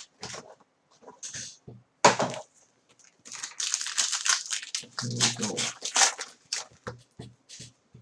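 Trading card packaging being handled and opened: quick, irregular crinkling and rustling of foil wrappers and cardboard.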